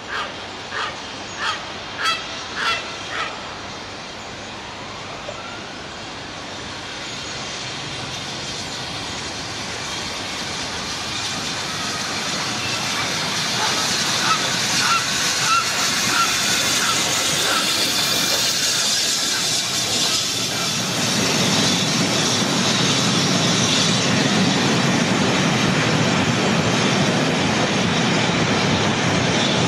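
A goose honks about six times in quick succession at the start. Then BR Standard Class 7 'Britannia' steam locomotive 70013 Oliver Cromwell and its coaches approach, the train's running noise growing steadily louder and staying loud through the second half.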